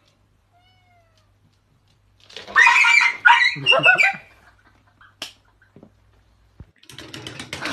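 Domestic cat meowing loudly, two drawn-out calls with bending pitch about two seconds in, followed by a sharp click.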